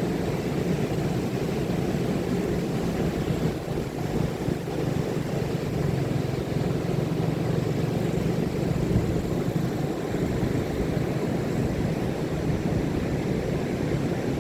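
Ocean surf on a beach: a steady, continuous roar of breaking waves.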